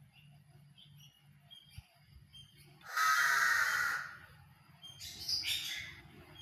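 A bird gives one loud, harsh squawk lasting about a second, then a shorter call about a second later, with faint chirps from other birds behind.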